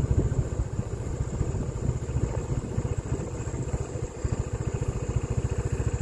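Motorcycle engine running steadily while being ridden along, heard from the rider's seat as a rapid, even train of exhaust pulses.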